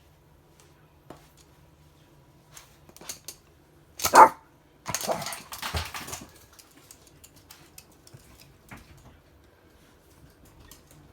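Toy poodle barking, with one loud bark about four seconds in and a couple more seconds of barking and scuffling after it. A few light clicks come before it.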